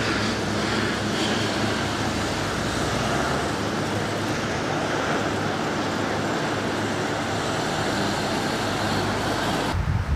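Steady road traffic noise with a low engine hum from vehicles running nearby. Near the end it cuts abruptly to a low wind rumble on the microphone.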